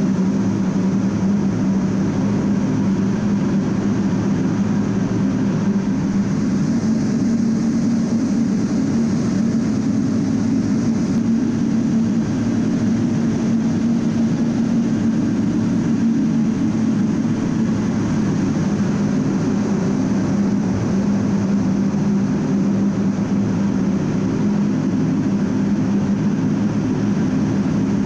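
Steady in-flight cockpit noise of an A-10 Thunderbolt II, from its two TF34 turbofan engines, with a constant low hum that does not change.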